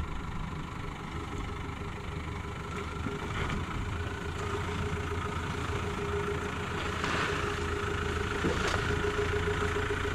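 Nissan Navara ute's engine running near idle as it crawls very slowly down a steep rutted bank, getting gradually louder as it comes closer, with a few short knocks in the second half.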